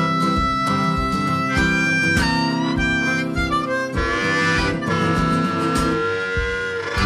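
Background music: a harmonica melody with long held notes over guitar and a steady beat.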